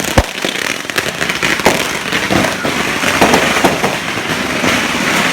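Firecrackers going off in a rapid, dense string of crackling pops, with a sharp bang just after the start.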